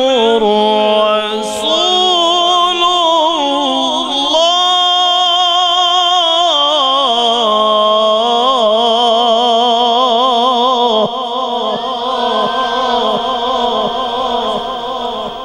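Male qari's melodic Quran recitation (tilawat), drawn out into long, ornamented phrases whose pitch wavers and shifts. It is heard through a microphone and fades gradually over the last few seconds.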